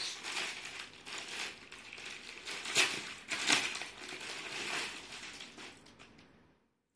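Rustling and crinkling of suit fabric being handled, with two louder crackles about three seconds in, fading away near the end.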